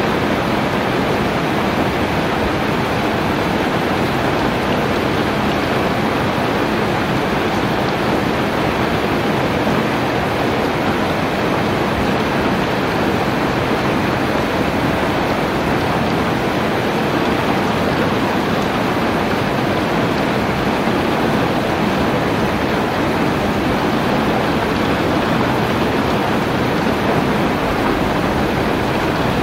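Heavy rain falling steadily, an even unbroken hiss with no single drops or other events standing out.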